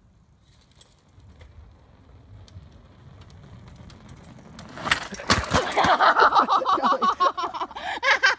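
Bicycle tyres rolling over the wooden planks of a bridge deck, a low rumble that grows louder, then a crash about five seconds in with sharp knocks as the rider and bike go down. A person cries out in a high, wavering voice after the fall.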